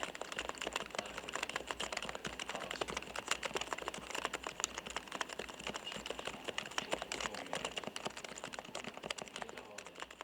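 Continuous typing on a Topre REALFORCE R3 keyboard with electrostatic capacitive (Topre) switches: a dense, irregular run of keystrokes, each bottoming out with the soft 'koto-koto' sound peculiar to these switches.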